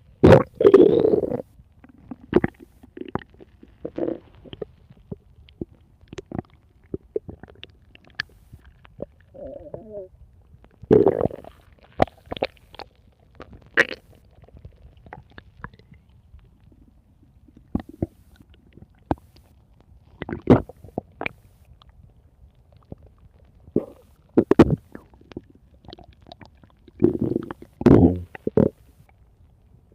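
Stomach growling: irregular gurgles and rumbles with short pops every few seconds. The longest rumbles come near the start and near the end.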